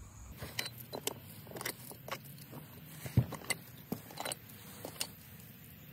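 Loose stainless steel screws and bolts clinking together as they are handled, a series of scattered light metallic clicks, with one louder knock about three seconds in.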